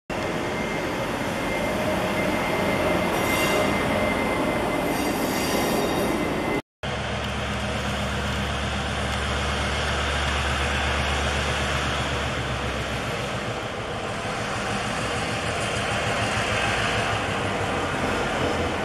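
An electric locomotive rolls past close by with rail noise and a thin high wheel squeal. After an abrupt cut, the R157 diesel-electric locomotive's engine drones low and steady as it hauls freight wagons toward and past, the rumble of wheels on rail growing as it nears.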